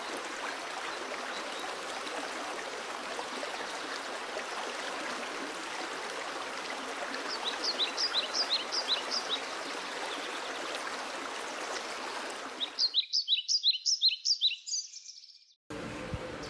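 Steady rush of running stream water, with a bird giving rapid series of short chirps over it about halfway through. Near the end the water cuts out abruptly, leaving the bird chirping alone for a couple of seconds before a brief silence.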